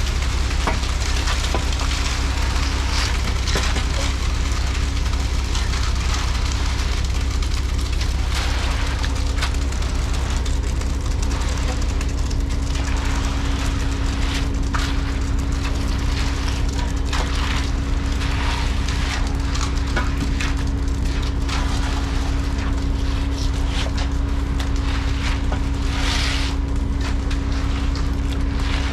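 Concrete mixer truck's diesel engine running steadily at idle, with a scattering of scrapes and crackles over it.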